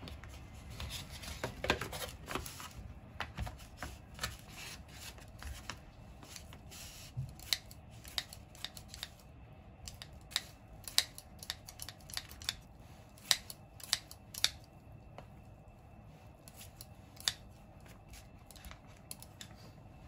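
Kitchen scissors snipping through thin slices of raw pork belly. The sharp snips come irregularly, one after another, some much louder than the rest.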